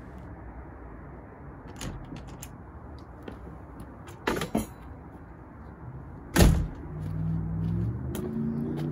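A door being handled: a couple of clicks about four seconds in, then a sharp bang a little after six seconds, over a steady hiss. A low hum with a few tones sets in about a second after the bang.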